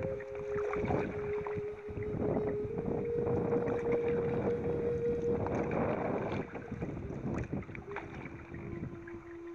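Canoe paddle strokes, with water splashing and sloshing against the hull, busiest in the first two-thirds and easing off after. Long held notes that change pitch every couple of seconds run beneath.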